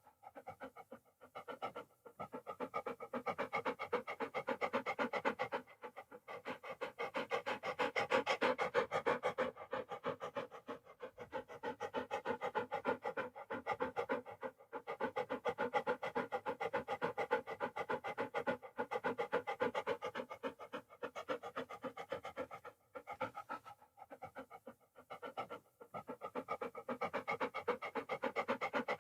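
A dog panting fast and steadily, several quick breaths a second, with a few short pauses.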